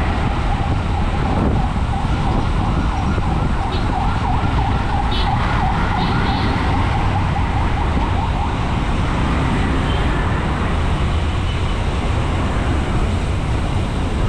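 Busy road traffic with a wavering siren over it, clearest in the first half and fading later, above a steady low rumble of traffic and wind on the microphone of a moving bicycle.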